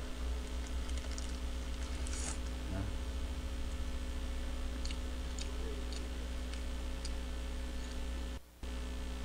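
Steady electrical mains hum from a boosted microphone, with faint chewing of a hamburger and a few soft clicks. The sound cuts out for a moment near the end.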